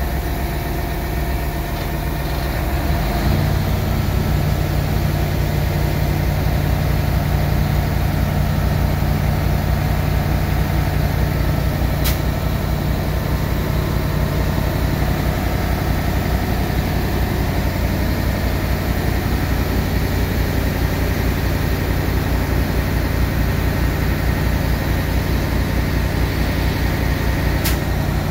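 Diesel engine of a 2007 Wirtgen W1900 cold milling machine running, its speed stepping up about three seconds in and then holding steady.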